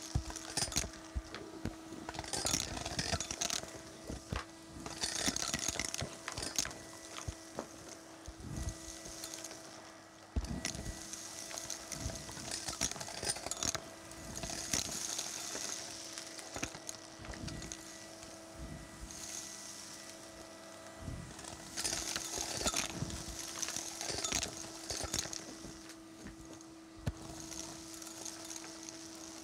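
Cylinder vacuum cleaner running steadily with a constant motor hum while its floor tool sucks up a pile of fluff, coins and small debris from a carpet. Every few seconds the debris rattles and clicks up the wand in a burst of hissing.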